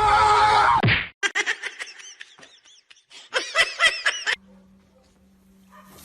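A loud sound with several steady tones cuts off about a second in. A person then laughs in a quick run of short bursts for about three seconds, followed by a faint steady low hum.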